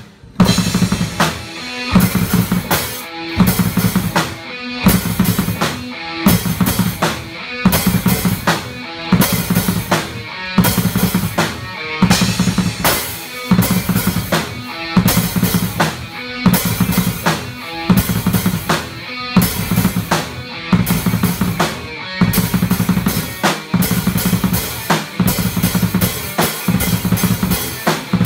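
Acoustic drum kit played hard in a steady, driving rock beat, with bass drum, snare and cymbals struck throughout.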